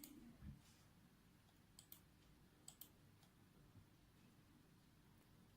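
Faint clicking from operating the hematology analyzer's software controls over near silence: a few short clicks at the start, then two quick pairs of clicks about a second apart.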